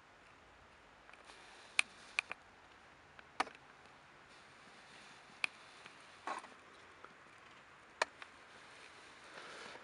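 Handheld camera handling noise inside a car cabin: a few scattered sharp clicks and light knocks over a faint steady hiss.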